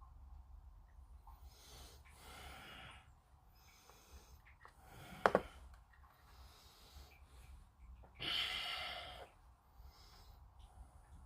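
A person breathing out audibly close to the microphone, twice, the second breath louder, with a single sharp click about halfway through.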